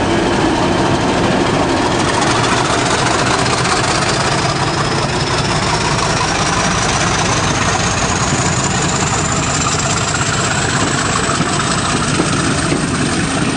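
British Rail Class 50 diesel locomotive 50049 working under power as it pulls away with its coaches, its English Electric V16 engine running loudly. Over it a high whine rises steadily in pitch, the sound behind the class's 'Hoover' nickname.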